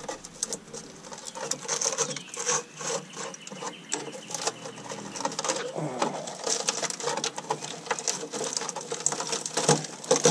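Rusted-through steel rocker panel of a 2005 Chevy Silverado 2500HD being pulled apart by hand: a steady run of small crackles, crunches and scrapes as the rotted sheet metal and rust flakes break away.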